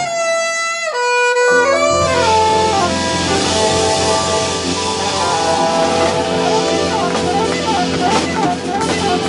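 Live jazz band: a saxophone plays an unaccompanied phrase, then about a second and a half in the drum kit and electric bass come in and the saxophone plays on over them.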